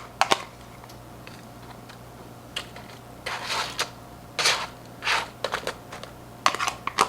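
Kitchen handling noises: sharp clicks at the start, then short crinkly, scraping rustles in irregular clusters through the second half. A steady low hum runs underneath.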